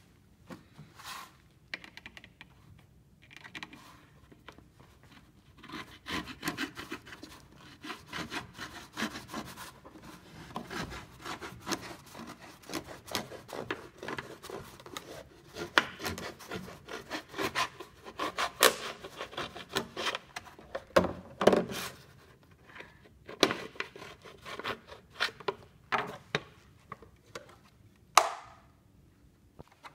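Kitchen knife drawn again and again through a pull-through knife sharpener: a quick, irregular series of rasping scrapes of the blade on the sharpening wheels. Near the end, one sharp clack.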